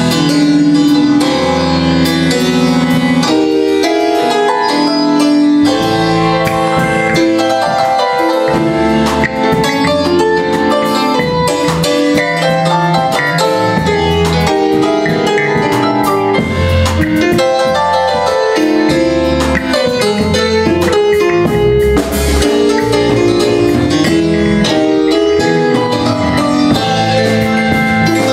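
Live Armenian jazz played by a trio on electric keyboard, electric bass guitar and drum kit.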